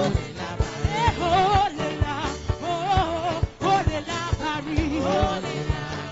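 Gospel praise music: a singer's voice winding up and down in pitch over a steady drum beat.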